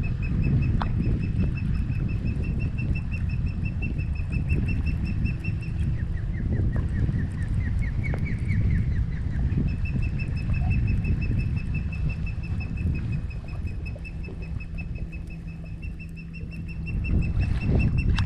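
A bird calling in a steady series of high, evenly spaced notes, about four a second, breaking off for a few seconds into a quicker run of chirps before starting again, over a steady low rumble.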